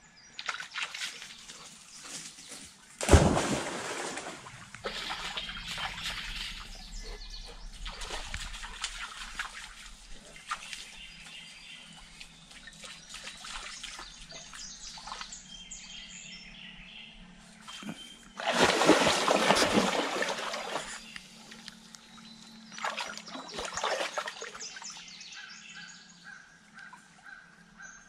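Dogs wading and splashing in a shallow creek: a sudden loud splash about three seconds in, quieter sloshing after it, then a longer burst of heavy splashing about eighteen seconds in and a shorter one a few seconds later.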